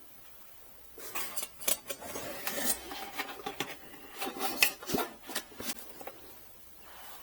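Packaging and parts handled while unboxing a diesel heater kit: rustling with scattered light clicks and knocks, and one sharper knock about five seconds in. It starts about a second in and dies away near the end.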